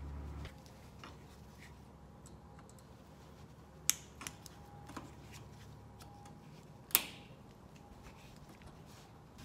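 A few sharp metal clicks and taps of hand tools, screwdriver and pliers, on the wheel's axle nut and hardware, the two loudest about four and seven seconds in. A low steady hum cuts off about half a second in.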